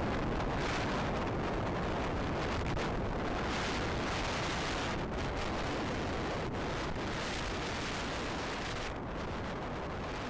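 Steady rush of wind over the microphone of a camera moving fast down a snowy slope, mixed with the hiss of sliding over packed snow.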